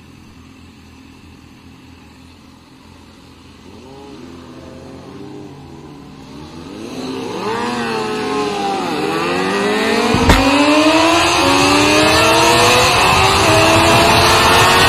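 Sport motorcycle engines idling and revving as the bikes pull away. Then, from about seven seconds in, a Honda CBR sportbike accelerates hard through the gears: the engine note climbs, drops at each shift and climbs again, under a rising rush of wind. There is a single sharp knock about ten seconds in.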